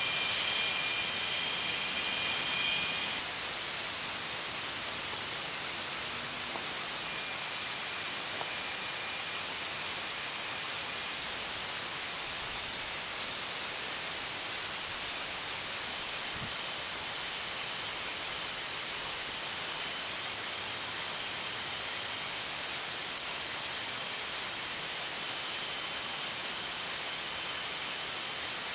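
Rainforest insect chorus: a steady high hiss with thin high-pitched tones that come and go, louder for the first few seconds. One sharp click comes about three-quarters of the way through.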